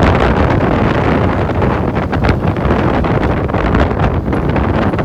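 Loud wind noise buffeting the microphone, with a low steady rumble underneath.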